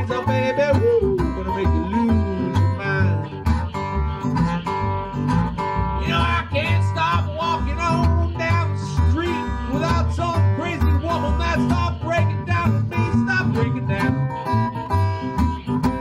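Instrumental break of an open-G acoustic country blues: acoustic guitar picking over a plucked washtub bass, with a lead line that bends in pitch.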